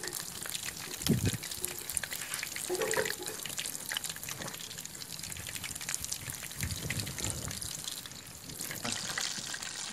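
Battered fish bajji pieces deep-frying in hot oil in a steel kadai, a constant fine crackling sizzle.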